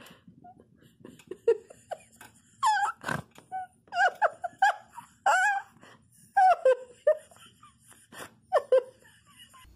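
A series of about a dozen short, high-pitched cries, most falling in pitch, coming in quick clusters, with a sharp knock about three seconds in and another near the end.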